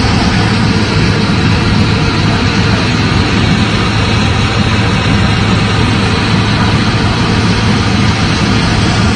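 Main battle tank's engine running loud and steady as the tank drives slowly past close by, with a deep constant hum.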